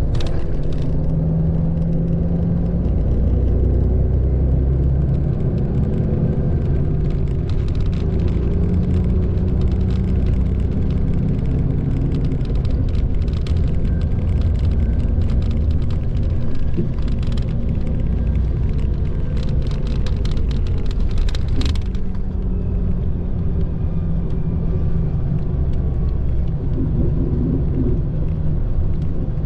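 Mitsubishi Fuso Aero Ace coach's diesel engine droning with tyre and road noise, heard from inside the passenger cabin. The engine's pitch shifts several times as the bus drives on.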